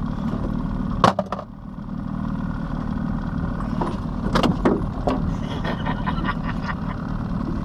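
Outboard motor idling steadily, with a sharp loud knock about a second in and a run of clatters and ticks around the middle as a snagged paddlefish is hauled aboard the boat.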